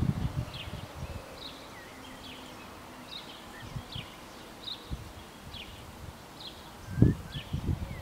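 Wind buffeting the microphone in uneven low thumps, the strongest gust about seven seconds in. A faint short high chirp repeats about once a second.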